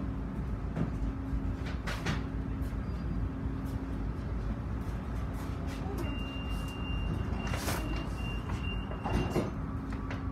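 Inside a Konstal 114Na low-floor tram standing still, its onboard equipment giving a steady hum with a constant low tone. A few short clacks come at about two seconds, nearly eight and just after nine, and a thin high tone sounds from about six seconds to nine and a half.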